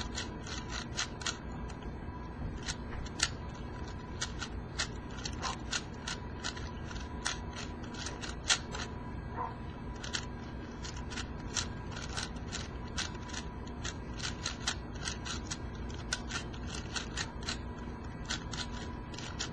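Plastic Shengshou 4x4 speedcube being turned quickly by hand: a fast, irregular run of clicks and clacks as the layers turn and snap into place. The turning is blocky, with spring noise that the owner takes as a sign the new cube needs lube.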